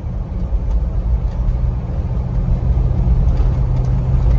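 In-cabin sound of a 1990 Jeep Grand Wagoneer's 5.9-litre AMC 360 V8 under way: a low, steady engine and road drone that grows steadily louder as the truck gathers speed.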